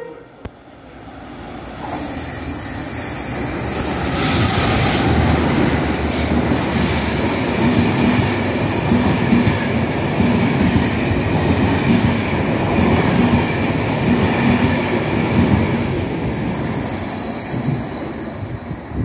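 Enterprise inter-city train running through a station: a rush of wheel and rail noise builds from about two seconds in and stays loud, with thin high-pitched tones from the wheels over it. It fades near the end.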